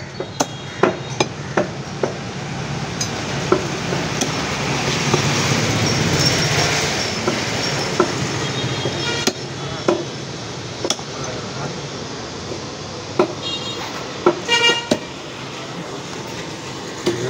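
Heavy cleaver chopping through chicken bone and meat onto a wooden log block: a quick run of knocks at first, then single strokes every second or so. Behind it a vehicle passes, swelling and fading through the middle, and a vehicle horn toots briefly, most clearly near the end.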